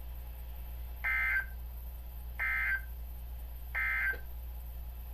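Three short bursts of EAS/SAME digital data tones, a warbling two-tone chirp about a second apart. Their shortness marks them as the end-of-message signal that closes an alert.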